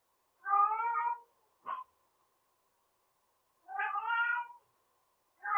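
A domestic cat meowing in long, drawn-out calls of a bit under a second each, three in all, the last starting near the end. A brief sharp sound follows the first call.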